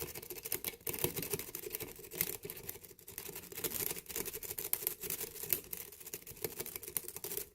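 A Bogota rake being scrubbed in and out of a pin-tumbler lock under light tension: a fast, continuous metallic scratching and clicking of the pick over the pins, raking the lock toward a false set.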